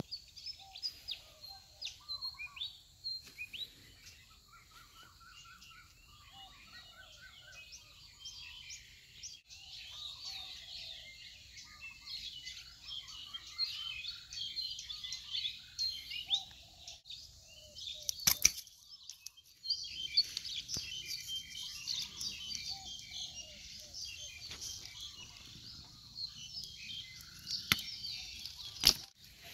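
Birds chirping and calling, many at once, throughout. A few sharp snaps stand out as the loudest sounds: one about two-thirds of the way through and two near the end, the last ones as pruning shears cut through a thin bamboo stem.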